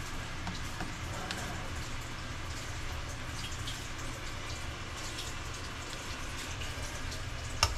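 A pot of dashi water heating just short of the boil, with faint ticking and popping of small bubbles over a steady low hum. A sharp double knock comes near the end.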